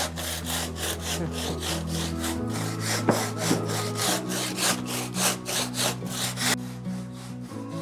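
Handsaw cutting into a stone wall: fast, even rasping back-and-forth strokes that stop about a second before the end.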